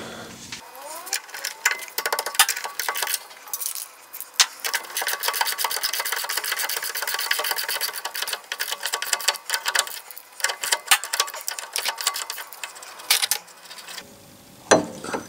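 Socket ratchet clicking in fast, uneven runs while a nut is run down on the rear shock absorber's lower mounting bolt.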